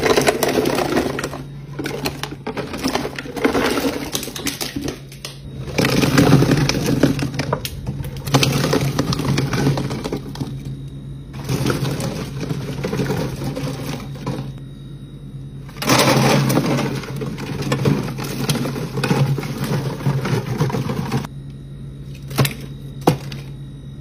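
Hundreds of small ball-shaped soft candies, each sealed in a clear plastic wrapper, poured out of a plastic bag onto a fridge shelf. They make a dense crackling clatter of plastic on plastic in about five long bouts with short pauses between.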